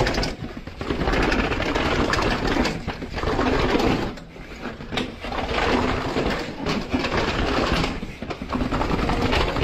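Mountain bike rattling and clattering fast down concrete stairs: a dense chatter of tyres, chain and frame over the steps, letting up for a moment a few times.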